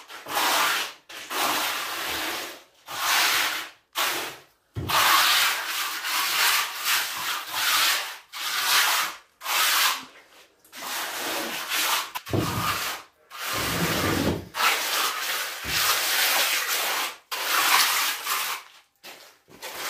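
A hand tool scraped across freshly poured concrete, smoothing the surface in repeated rasping strokes, each about a second or so long with short breaks between.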